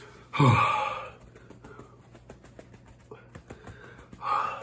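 A man lets out a loud, heavy sigh about half a second in, its pitch falling, as he reacts to the burn of a very hot sauce. Faint rustling and ticks follow. A second short breathy exhale comes near the end.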